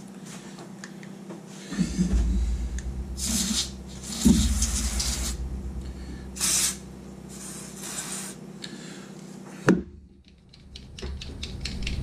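Aerosol can of silicone lithium grease sprayed through its straw in four short hisses onto a seatbelt buckle's spring and switch mechanism, lubricating it. A sharp click follows near the end.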